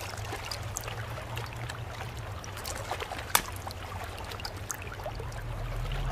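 Water trickling and lapping, with many small scattered clicks and one sharper click about three and a half seconds in, over a low steady hum.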